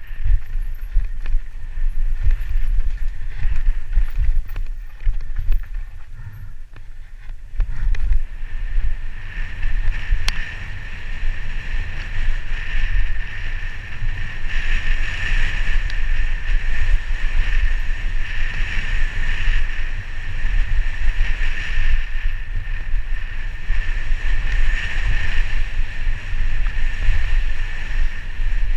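Wind buffeting and rumble from a helmet-mounted camera during a fast mountain-bike descent on a dirt forest trail: tyres and bike rattling over the ground, with a steady high buzz on top. It eases off briefly a few seconds in, then picks up again.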